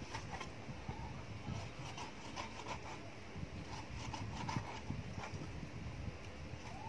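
Meat cleaver chopping pork belly into small pieces on a thick wooden chopping board: a run of repeated knocks of the blade through the meat into the wood.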